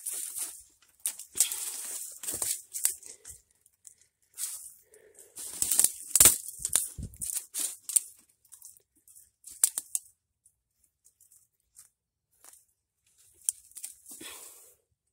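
Dry branches and dead leaves rustling and crackling in irregular bursts, with a few sharp twig snaps, as someone works through thick brush; loudest about six seconds in, with shorter bursts near the end.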